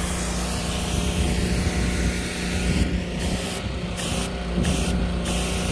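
Pressure washer running at about 3,000 psi, with a steady machine hum under the hiss of the water spray. In the second half, the spray hiss cuts out briefly about four times while the hum keeps going.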